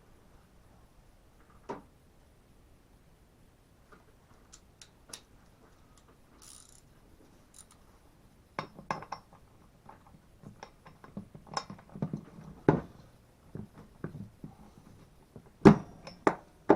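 Metal hand tools clinking and knocking on a Stihl MS170/180 chainsaw's engine as it is worked on: scattered sharp clicks, few at first and busier from about halfway, with two loud knocks near the end.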